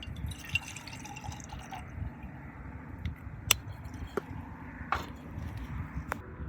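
Campfire crackling, with a few sharp pops and snaps in the second half.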